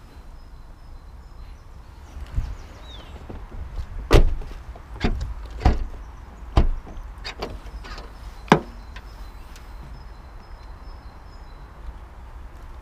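Seat Ibiza hatchback's doors and tailgate being worked: a series of sharp clunks and thumps about four to nine seconds in as a rear door is shut and the tailgate is unlatched at its badge release and lifted, over a low steady rumble.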